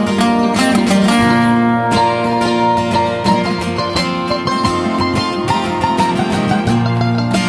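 Live acoustic country instrumental break: mandolin and two acoustic guitars, quick plucked lead notes over strummed chords, with no singing.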